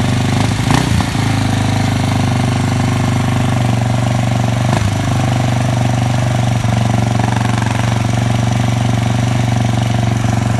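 1986 Honda XR600R's single-cylinder four-stroke engine idling steadily at an even speed, just after being started.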